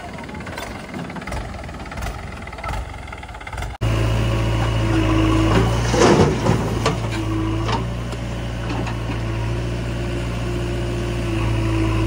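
Diesel engines idling, then, after an abrupt change about four seconds in, a JCB 3DX backhoe loader's engine running steadily with an on-off hydraulic whine. Around six seconds in there is a burst of clattering as a bucketload of soil and roots drops into a steel tractor trolley.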